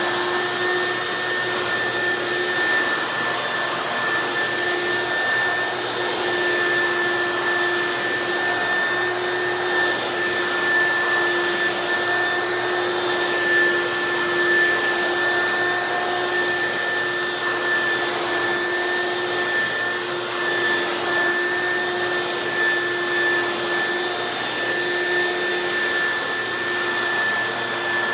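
Hoover Quik Broom S2541 suction-only stick vacuum running steadily, a high motor whine over the hiss of airflow, as it is passed over a low-pile area rug.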